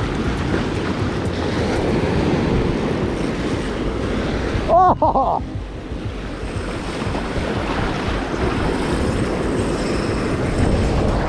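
Ocean surf washing in over shoreline rocks and sand, a steady wash of breaking water.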